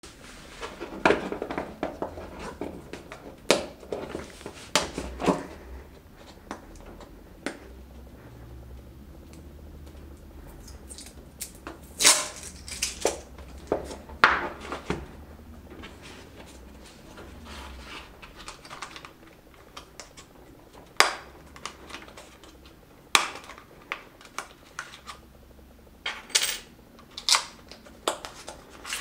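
Hands handling a cardboard smartphone box on a wooden surface: irregular clicks, taps and knocks as the box is moved and its lid lifted off, with light cardboard rustling between them.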